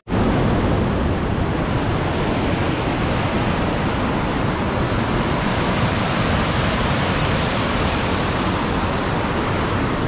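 Waterfall: a loud, steady rush of falling water that starts abruptly and holds even throughout.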